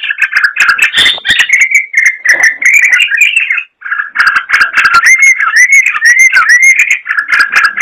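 Yellow-vented bulbul (trucukan) singing loudly and without pause: a rapid run of chattering, bubbling whistled notes. After a brief break just under four seconds in, it goes on with slurred rising and falling phrases.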